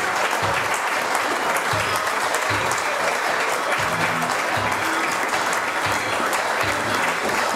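Theatre audience applauding steadily, with music with a regular low beat playing beneath the clapping.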